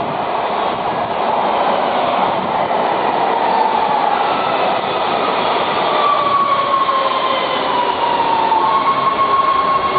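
Los Angeles Metro Red Line subway train pulling into the station: a steady rumble of wheels and cars, with a high whine that slowly falls in pitch as it slows, then holds one steady tone near the end.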